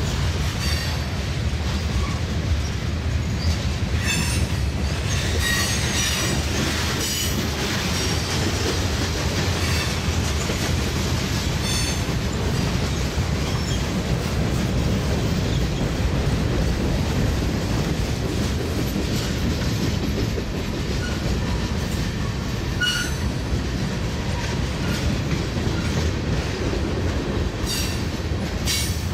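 Norfolk Southern freight train rolling past, a steady rumble of wheels on rail with clacking over the joints. Short high-pitched wheel squeals come through several times.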